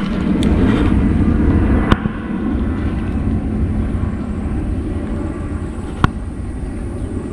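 Steady low rumble of wind buffeting the microphone, with three sharp clicks from handling the baitcasting rod and reel while retrieving a lure.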